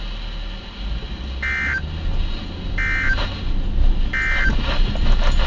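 NOAA Weather Radio SAME end-of-message code: three short buzzy digital data squawks about a second and a half apart, marking the end of the special marine warning. A steady low rumble runs underneath.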